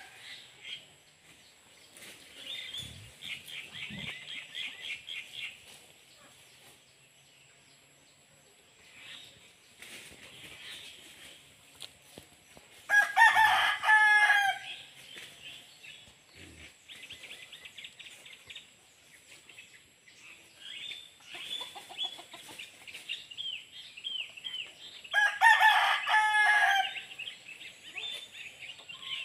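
A rooster crowing twice, once about halfway through and again near the end, each crow lasting about a second and a half. Smaller birds chirp in quick high runs between the crows.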